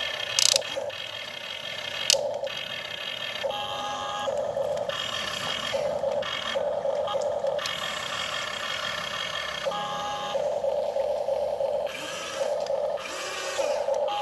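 Small electric motors of radio-controlled construction models whining in repeated short on-off bursts, each spinning up and back down, with a few sharp clicks.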